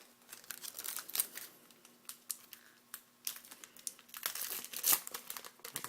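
Crinkling and tearing of a trading-card pack wrapper being handled and opened, in irregular crackles that come thicker about four seconds in.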